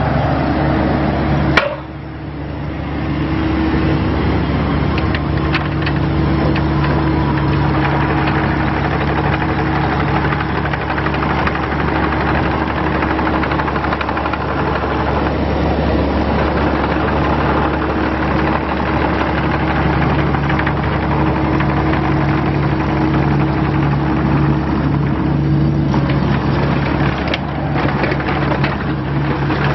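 2012 Bobcat E26 mini excavator's diesel engine running steadily at a constant pitch. A single sharp click comes about a second and a half in, with a brief drop in level just after.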